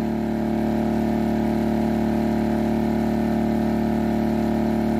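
Heomaito HMT3500iD inverter generator's engine running steadily on propane with eco mode off, holding an even speed under a heavy load of about 3,100 watts from two electric heaters.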